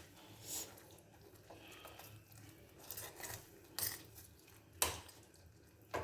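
A spoon scraping and knocking in a kadhai a few times, short sharp strokes at uneven intervals, as jaggery is stirred into a thick paste frying in ghee.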